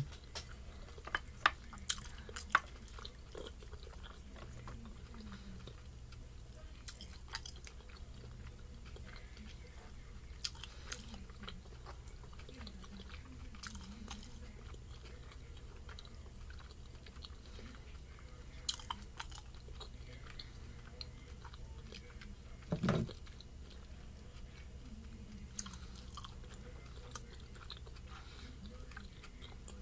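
Close-miked chewing and mouth sounds of a person eating spicy noodles: scattered wet smacks and clicks. One louder, longer sound comes about three-quarters of the way through.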